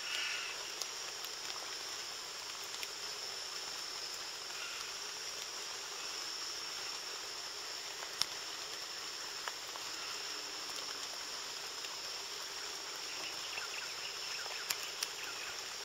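Tropical rainforest ambience: a steady high-pitched insect drone over an even soft hiss. A short call sounds right at the start, a few sharp clicks come about halfway through and near the end, and faint chirps are heard near the end.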